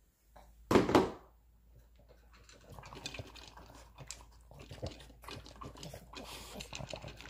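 Boston terrier eating kibble and meat chunks from a bowl: a dense, irregular run of crunching and chewing that builds from about two and a half seconds in. A short loud sound comes about a second in, before the eating starts.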